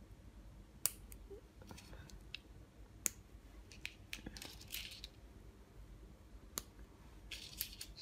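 Plastic stick-building toy rods clicking as they are snapped together by hand: a few sharp clicks, about 1, 3 and 6.5 seconds in, with smaller ticks and soft rustling of the plastic pieces in between.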